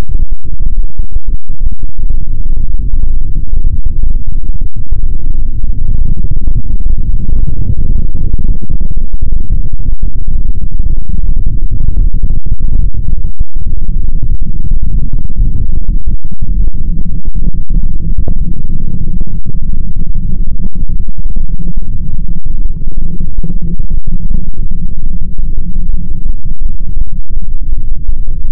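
Loud, distorted low rumble with no clear pitch or rhythm.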